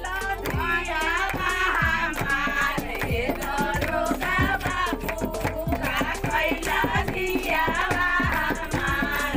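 Folk song sung with a hand drum beating the rhythm underneath, as dance music.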